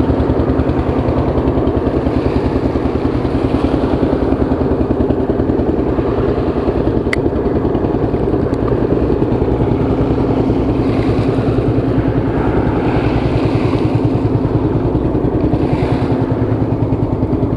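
An engine running steadily and loudly, with a fast, even pulse, and a single sharp click about seven seconds in.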